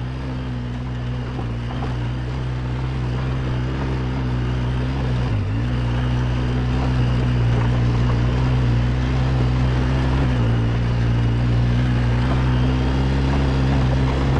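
Quad bike (ATV) engine running steadily under load while climbing a rocky trail, growing gradually louder, with brief dips in pitch about five and ten seconds in. Loose small stones rattle under the tyres.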